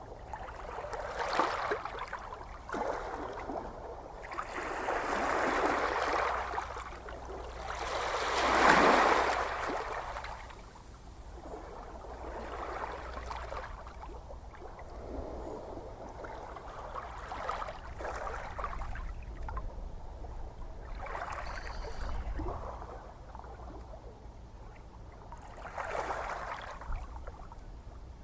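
Ocean waves washing onto a shore: rushing swells that rise and fall every few seconds, the biggest about nine seconds in, over a low steady rumble of surf.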